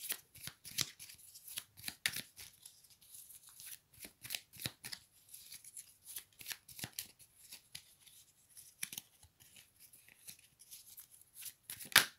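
A deck of oracle cards being shuffled by hand: an irregular run of soft card flicks and slaps, with one sharper snap near the end.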